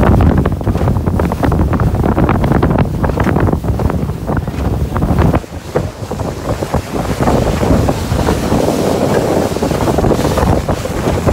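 Wind buffeting the microphone over the running outboard motor and rushing water of a boat underway at speed on choppy sea, with a brief lull about halfway through.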